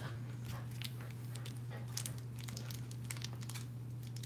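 Plastic packaging crinkling and tearing as it is worked open, in scattered small crackles over a steady low hum.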